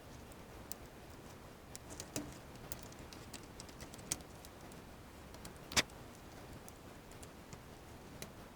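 Faint, scattered clicks and taps of hand work inside an opened LED TV: small screws, parts and a cover plate being handled during disassembly. There are a few light clicks and one sharper click a little before six seconds in.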